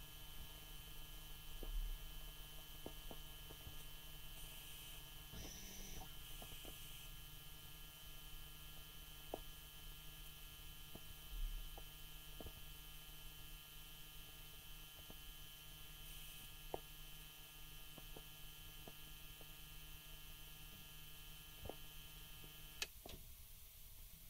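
Steady electrical buzz, a stack of even tones, from a 2004 BMW E60 530d's electrical system as its electronics wake up while the car is switched off. A few faint ticks sound through it, and the buzz cuts off near the end.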